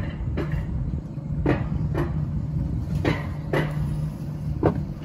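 Alpine coaster sled climbing the lift section of its metal rail track: a steady low drone with sharp clacks, mostly in pairs about half a second apart, repeating roughly every one and a half seconds.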